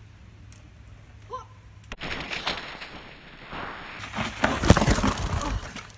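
Mountain bike riding down a wooden ramp onto a dirt trail: tyre noise on dirt, then a run of sharp knocks and clatter in the last two seconds, the loudest just before the end.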